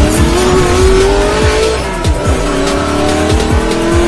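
Car engine revving sound effect over electronic music with a kick-drum beat: the engine pitch climbs, drops back about two seconds in, then climbs again.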